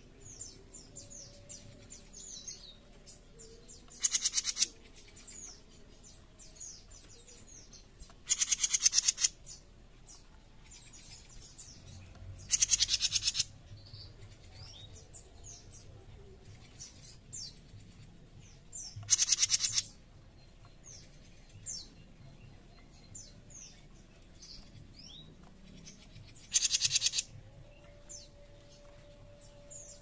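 Caged jenggot mini songbird giving harsh, rasping buzz calls (besetan). There are five of them, each under a second and several seconds apart, with faint high chirps in between.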